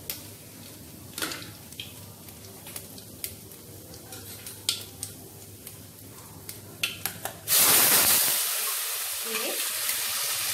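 Nigella seeds in hot oil in a kadai, crackling with scattered pops. About seven and a half seconds in, pointed gourd paste goes into the oil, setting off a sudden loud sizzle that keeps going.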